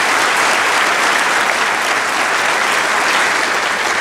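A large audience applauding: steady, dense clapping.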